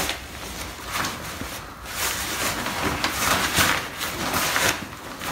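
Fabric of an Osprey Volt 75 backpack rustling and crinkling as hands pull at its drawstring and dig into the main compartment, in a run of scratchy bursts.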